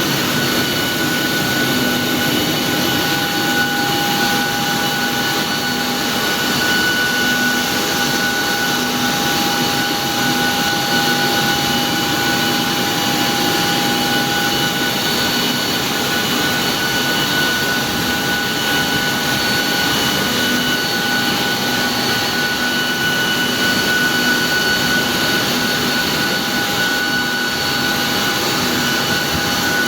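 Steady jet turbine noise with a constant high whine, holding the same level throughout.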